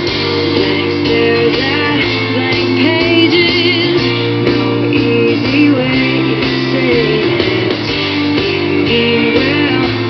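A pop-rock song with guitar and singing, played through a computer's speakers.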